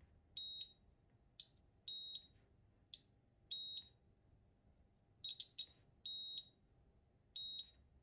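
Multimeter beeping while its probes are touched to capacitors around the power and charging chips in a check for shorts. It gives a series of short, high beeps every second or two, with faint clicks of the probe tips between them.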